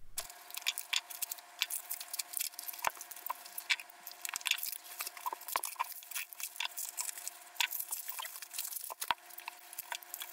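Plastic mailer bag and bubble wrap rustling and crinkling as a package is cut open and unwrapped, played back sped up: a dense, irregular run of quick crackles and clicks over a faint steady hum.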